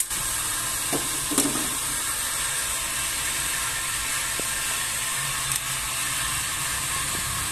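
Steady hiss of a wok of sautéed squash and vegetables cooking over a gas burner.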